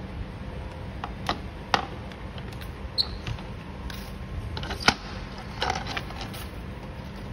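Cylindrical lithium-ion cells clacking against each other as they are picked from a plastic bin and pressed together by hand into a bundle: several short, sharp clicks, the loudest about five seconds in, over a steady low hum.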